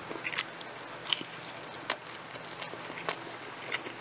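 Chewing a mouthful of pepperoni pizza close to the microphone: quiet mouth sounds with a few sharp, irregular clicks and crunches of crust.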